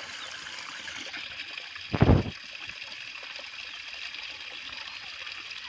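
Water trickling steadily through a channel cut in a mud bank, with one short, low thump about two seconds in.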